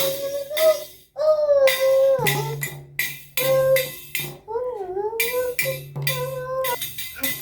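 Music: a high voice singing a melody in long held notes, with a jingling, shaking percussion beat.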